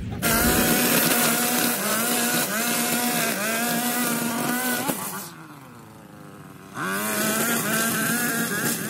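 Gas string trimmer engine at high revs cutting grass. About five seconds in it drops back to idle for a moment, then revs up again.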